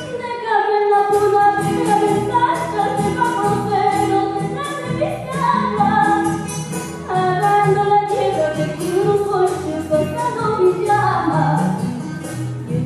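A young girl singing a melody solo through a headset microphone, over a rhythmic instrumental backing in a Latin American style.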